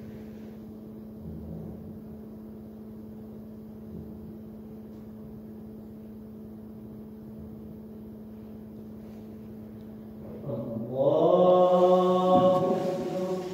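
A steady low hum, then, about ten and a half seconds in, an imam's voice chanting a drawn-out phrase of the prayer, sliding up in pitch and then holding.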